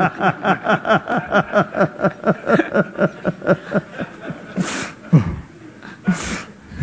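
A man laughing heartily in a long even run of 'ha-ha' pulses, about five a second, that trails off after about four seconds into a few breathy chuckles.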